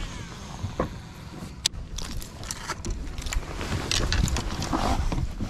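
Scattered clicks and knocks from handling a baitcasting rod and reel on a bass boat's deck, over a steady low rumble.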